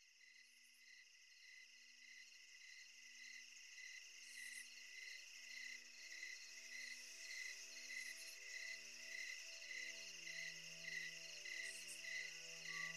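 Crickets chirping in an even rhythm, fading in, over a soft pulsing low tone. Sustained notes come in about nine seconds in: the opening of an ambient music track.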